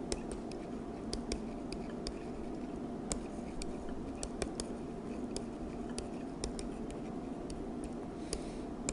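Stylus pen tapping and clicking on a writing tablet as words are handwritten: short, sharp, irregular clicks a few times a second over a faint steady hum.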